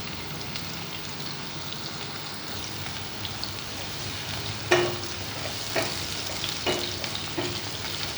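Sliced onion sizzling in hot oil in a pot as it is sautéed and stirred, with a few knocks of the spoon on the pan in the second half, the loudest about five seconds in.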